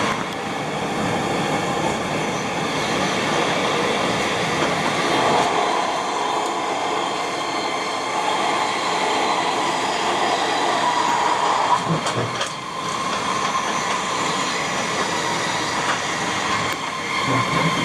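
An electric commuter train running at speed, heard from inside the passenger car: a steady rolling noise of wheels on rails that dips briefly about two-thirds of the way through.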